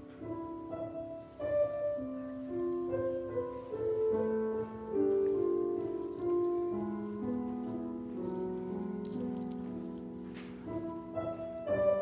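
Slow instrumental keyboard music, with held chords moving under a simple melody.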